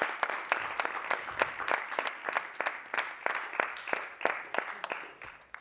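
A small group applauding with hand claps, thinning out and fading away toward the end.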